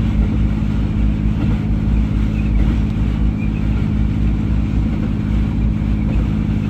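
A vehicle engine running at a steady speed, giving a low, even drone.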